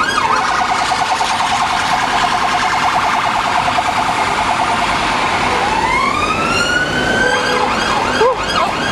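Emergency vehicle siren, loud. It gives a very fast warble for the first few seconds, then one long rising wail about halfway through, and switches to a quicker up-and-down yelp near the end.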